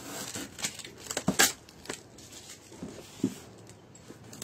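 Parcel being opened by hand: scattered scrapes, taps and rustles as the taped wrapping on a box is picked and cut with a small blade, the loudest scrape about a second and a half in.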